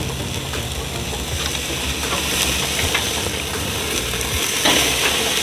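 Ribeye roast sizzling as it sears on a very hot grill, a steady hiss that grows louder near the end as the meat is turned over onto its bone side.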